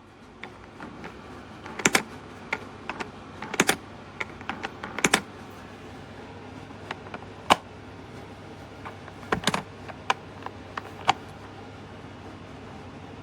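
Irregular light clicks and knocks, a few sharper than the rest, scattered over a faint steady hum.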